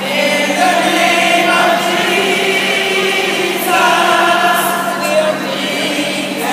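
A group of voices singing a gospel hymn together in long held notes, with a steady low hum underneath.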